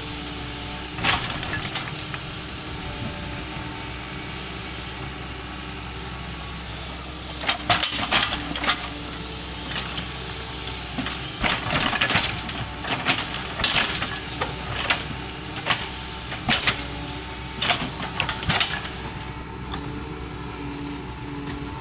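Doosan 140 wheeled excavator's diesel engine running steadily, with repeated short scraping and clanking noises from the bucket working in the soil, bunched near the middle and through the later part.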